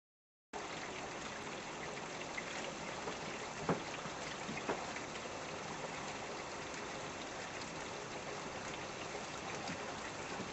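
Heavy rain shower pouring down as a steady hiss, with scattered drops tapping; two sharper taps stand out about four and five seconds in.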